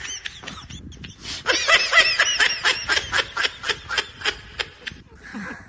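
A person laughing in quick, high-pitched pulses, about five a second: a short bout at the start and a longer one from about a second and a half in, dying away near the end.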